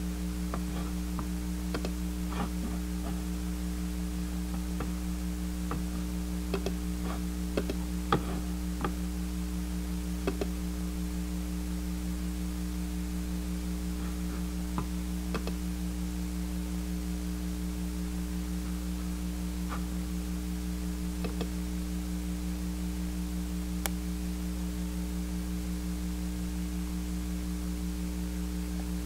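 Steady low electrical hum with scattered faint clicks and taps, the loudest about eight seconds in and a sharp click near 24 seconds.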